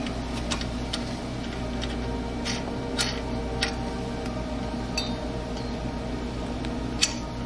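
Small metallic clicks and clinks, about eight of them at uneven intervals, as lug nuts are handled and threaded by hand onto the studs of a bolt-on wheel spacer. One sharper clink comes near the end, over a steady low hum.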